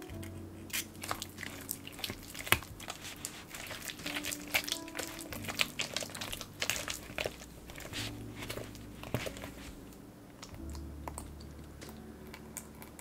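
Red silicone spatula stirring and folding a thick, sticky cream cheese and sweet potato batter in a glass bowl as an egg is worked in: wet squishing with many sharp little clicks and scrapes against the glass, easing off near the end. Soft background music plays underneath.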